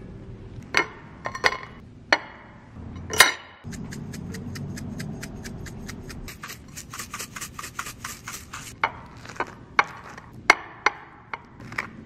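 A metal fork mashing and spreading avocado on toasted sourdough bread: a few clicks and knocks, then from about four seconds in a quick, even run of scraping strokes against the crusty toast, which slows into separate scrapes and taps near the end.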